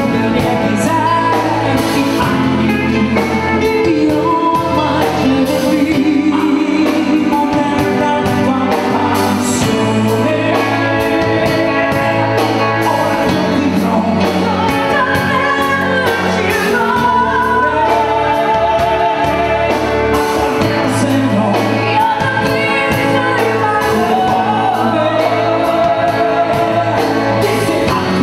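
A song sung by a woman and a man together over a band with drums, keyboards, guitar and a bass line that moves about once a second.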